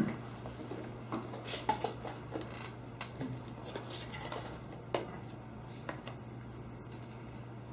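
Quiet classroom room tone: a steady low hum with scattered faint clicks and rustles of paper and pencils.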